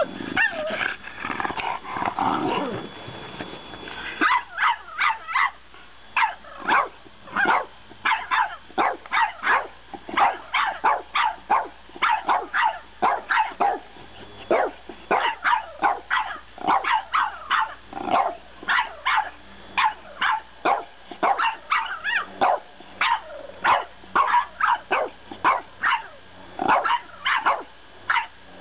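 A French Bulldog puppy yapping at another French Bulldog in a long rapid string of short, sharp barks, about two or three a second. The first few seconds hold a lower, drawn-out grumbling before the barking starts.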